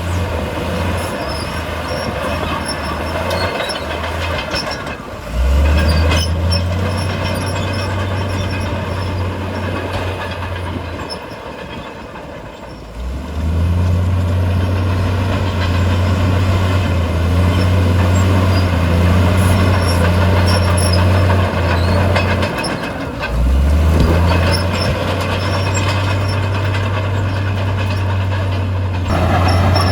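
Heavy diesel earthmoving machinery working: a deep, steady engine drone with a broad mechanical rattle over it, the engine note dropping and coming back in steps as the load changes. It eases off and goes quieter about twelve seconds in, then climbs back about a second later.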